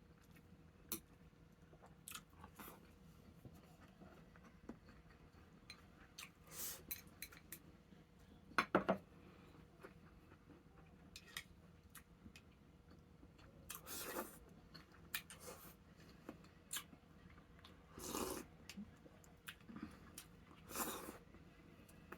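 Eating at the table: scattered light clicks and clinks of tableware against dishes, with several short noisy bursts of chewing or slurping.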